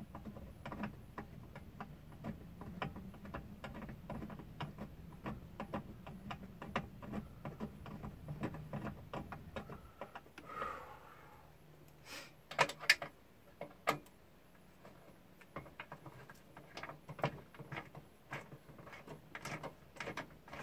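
Hand socket ratchet clicking in quick runs as it backs out the long threaded bolts holding a popup camper's rooftop air conditioner, with a few louder knocks a little past halfway. A low hum underneath stops about halfway through.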